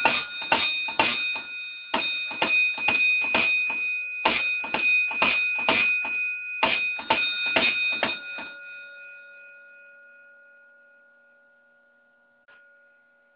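A 12-volt AC coded fire alarm bell on a vintage Edwards 1303 selective coded system is sounding its alarm code. It gives rapid, evenly paced strikes in about four groups separated by short pauses, and after the last group the bell's ring dies away over a few seconds. A faint click comes near the end.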